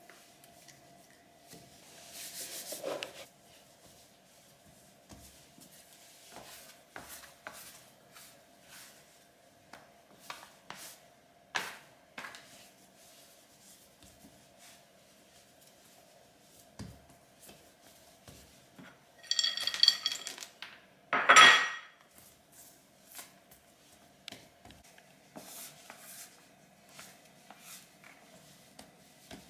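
Soft scattered taps and rubs of hands pressing and flattening dough on a countertop. About two-thirds through come two brief clattering clinks of a small glass bowl as almonds and walnuts are tipped out onto the dough; the second clink is the loudest sound.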